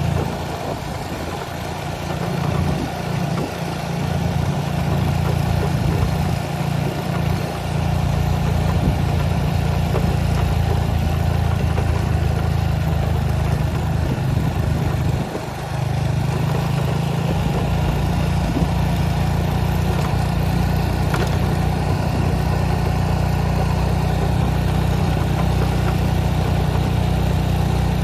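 A motor vehicle engine running steadily under a heavy low rumble, which dips briefly about halfway through.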